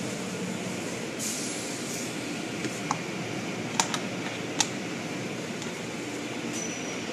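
Automatic car wash tunnel running, heard muffled through a viewing window as a steady whir of brushes and spray, with a few sharp clicks about halfway through.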